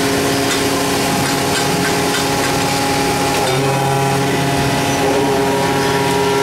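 Alpha 500-ton powder compacting press running: a loud, steady machine drone with several hum tones that shift about three and a half seconds in, and a few faint knocks.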